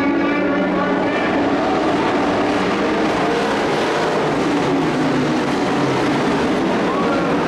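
Several dirt-track racing trucks' engines running hard around the oval together, their pitch rising and falling as they accelerate and pass.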